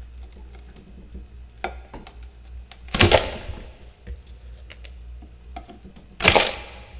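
A scraper drawn hard across thick freezer frost: two loud scraping strokes about three seconds apart, each about half a second long. Small ticks and crackles of loosened frost come between them.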